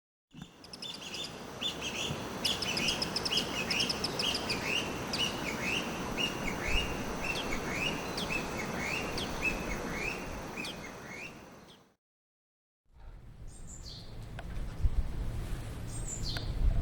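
Small wild birds calling: a rapid series of short, sharp call notes, a few each second, for about eleven seconds. After a second of silence, a different bird gives two high calls that drop in pitch.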